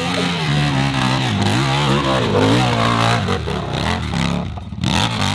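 Motorcycle engine revving, its pitch rising and falling again and again, with a short drop about five seconds in before it picks up again.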